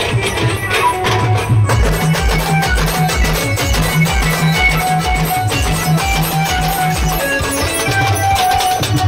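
Live street band playing: drums keep a steady, driving beat under a held, stepping melody line.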